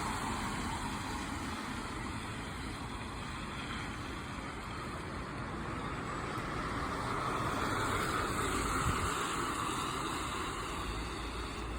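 Road traffic on a wet street: a steady wash of tyre and engine noise, one vehicle passing loudest about eight seconds in, and a low engine rumble coming up near the end.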